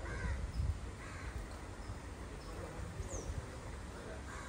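Crows cawing a few times, loudest near the start, with a short high chirp from another bird about three seconds in, over a steady low rumble.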